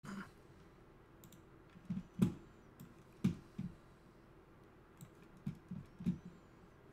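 Irregular clicks and taps on a computer keyboard and mouse, about seven in all, each with a dull thud. The loudest come about two and three seconds in.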